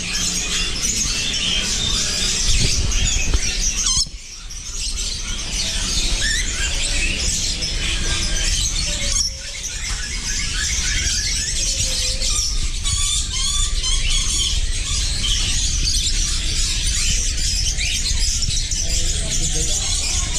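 Dense din of many caged birds calling at once, lories among them: a constant mass of chirps and whistles with shrill squeals, over a low rumble.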